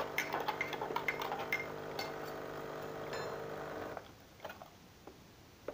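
A spoon clinks quickly and repeatedly against a metal cup as coffee is stirred, over a steady hum that cuts off about four seconds in. A few faint clicks follow.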